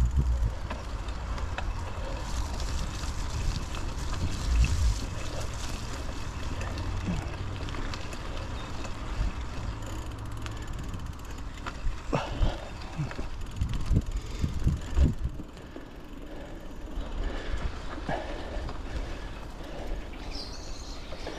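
Mountain bike on Maxxis Forekaster and Aspen XC tyres being ridden along a muddy trail: a steady rush of tyre and wind noise, with a run of sharp knocks and rattles from bumps about twelve to fifteen seconds in, then quieter.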